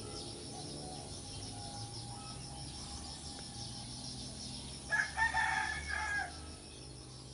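A rooster crows once, about five seconds in, loud over a steady background of high insect chirring and a low hum.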